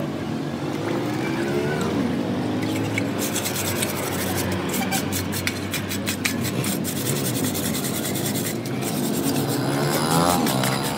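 Hand scrubbing in a shallow pool of water, with rasping, scraping and splashing from about three seconds in. Underneath, an engine keeps running, its pitch briefly rising and falling twice.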